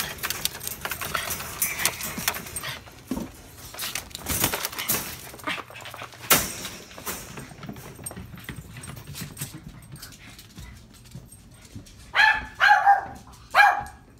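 Wire dog crate rattling and clicking as its locked door is handled. Near the end, a dog gives a few short, high barks.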